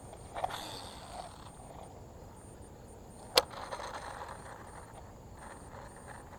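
Baitcasting fishing reel being worked: two sharp mechanical clicks, a small one about half a second in and a louder one about three and a half seconds in, over faint outdoor background noise.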